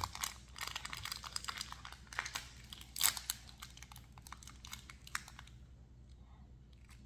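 Plastic toy packaging being handled and opened: rapid crinkling and clicking, loudest about three seconds in, dying away after about five seconds.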